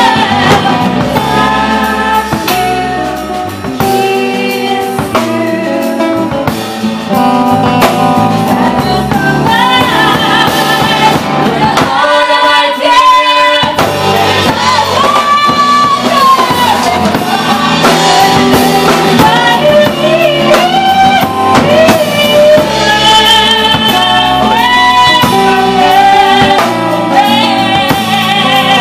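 Live band playing a song: a singer with vibrato over acoustic guitar and drum kit. About twelve seconds in, the bass and drums drop out for a couple of seconds, then the band comes back in.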